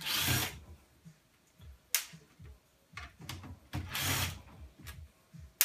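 Two short bursts of a power drill driving screws out of a computer tower's sheet-metal case, with sharp clicks and knocks between them.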